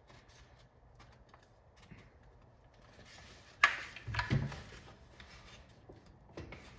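A sharp click and then a couple of dull knocks, with lighter taps near the end: a drilled wooden dowel plug being handled and test-fitted into a button hole in a wooden arcade control panel.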